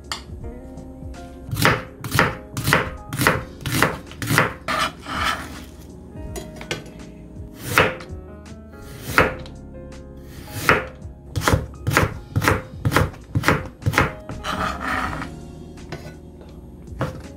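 Kitchen knife slicing carrots on a cutting board. Sharp knocks come in runs of about two a second, with a few pauses between them.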